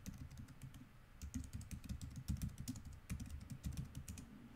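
Typing on a computer keyboard: a quick, uneven run of keystrokes that stops a little before the end.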